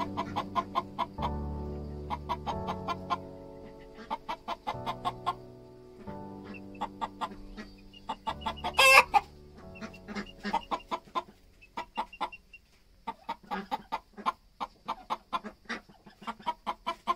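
Broody hen clucking in a long run of short, repeated notes, with one louder, sharper note about nine seconds in; the clucking of a nervous broody hen that has not yet settled on the eggs.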